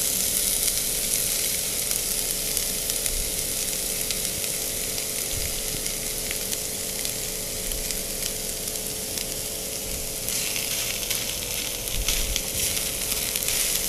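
Oil sizzling in a nonstick frying pan as mashed boiled potatoes are scraped in on top of frying onions, garlic and green chilli. The hiss grows louder about ten seconds in.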